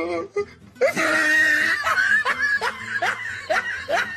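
Laughter: a quick run of repeated ha-ha bursts that starts about a second in and goes on for about three seconds.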